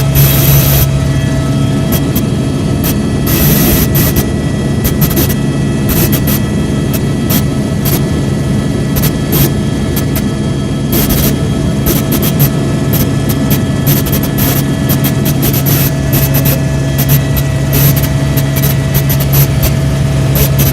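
Helicopter turbine engine and rotor running steadily, a loud continuous drone with a low hum.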